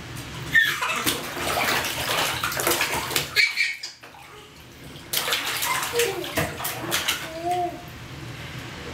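Water splashing in a plastic infant bath tub, in two bouts with a quieter pause of about a second and a half between them. A baby gives a short coo near the end.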